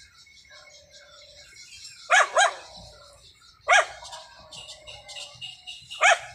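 A dog barking: two quick barks about two seconds in, another a second later and a fourth near the end. Faint high chirping goes on underneath.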